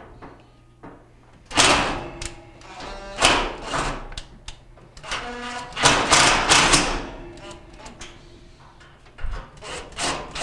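Cordless drill driving screws up into the underside of a gas range's control-panel console, the motor running in several short bursts.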